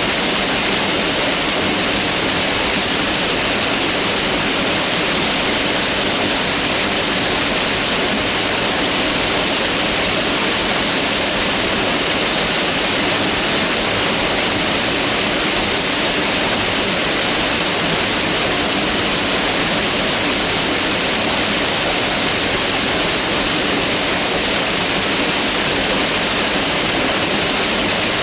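Mountain river water rushing over rocks, a steady, unbroken hiss of flowing water.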